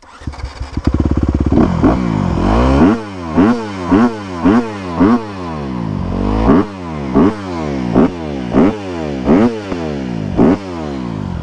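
Honda CRF250R dirt bike's single-cylinder four-stroke engine running and blipped hard about a dozen times in quick succession, dropping back to idle between blips and settling to a steady idle near the end. The bike has been cutting out and stalling, and the revving tests whether it will hold.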